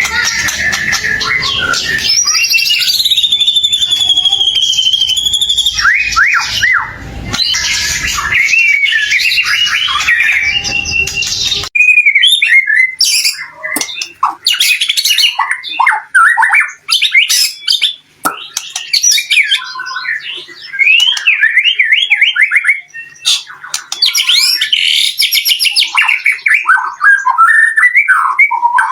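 White-rumped shama (murai batu) singing in full, hard song: a fast, varied run of loud whistles, rising and falling glides and chattering notes. The first part sits over a steady background hiss that cuts out about twelve seconds in, leaving cleaner song.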